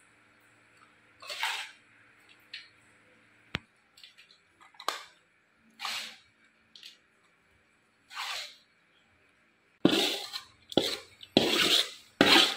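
A spatula scraping freshly cooked fried rice out of a pan to serve it: scattered single scrapes at first, then quicker, louder scraping strokes near the end.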